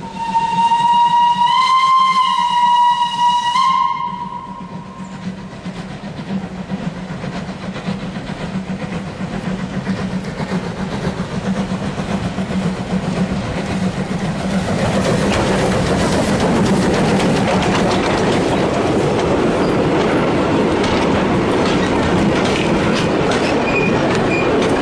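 Steam locomotive whistle held for about three and a half seconds, one note that lifts slightly in pitch partway through. Then a small steam tank engine and its train approach and pass close by: the rumble swells, with the clickety-clack of the carriage wheels over the rail joints in the last seconds.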